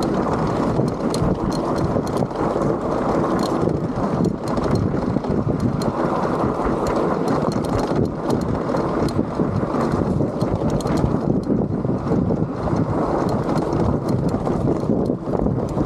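Electric mountain bike rolling down a rocky, gravelly trail: tyres crunching over stones and the bike rattling, with many short clicks and knocks over a steady rumble of wind on the microphone.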